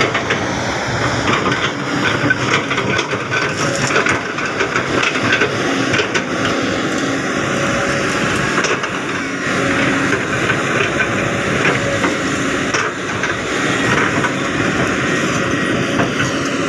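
Kobelco SK200 hydraulic excavator running steadily as its bucket digs and pushes soil and brush, with scattered cracks and knocks throughout.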